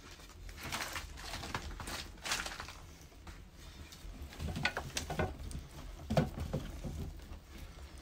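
Wood fire crackling and popping, with dry sticks rustling and knocking as they are laid across the flames. The clicks come in two busy spells, one in the first couple of seconds and one in the middle.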